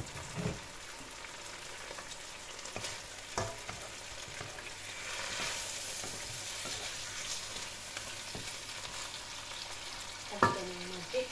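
Meat and onions sizzling steadily in a hot wok, stirred with a wooden spatula that knocks against the pan a few times, once more sharply near the end.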